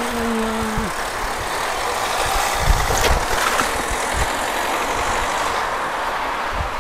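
Steady street-traffic and wind noise heard from a moving bicycle. A short steady pitched tone sounds in the first second, and a knock comes about three seconds in.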